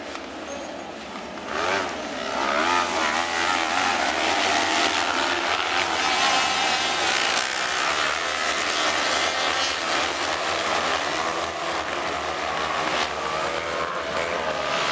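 A pack of 500 cc kart cross buggies racing past, several engines revving together, their pitches rising and falling as they accelerate and shift. The sound swells about two seconds in and stays loud.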